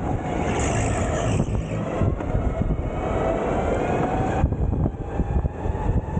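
Sodi go-kart under way on the track, its motor giving a slowly rising whine over a steady rush of wind and tyre noise. About four and a half seconds in the whine cuts off, leaving the rumble and rush.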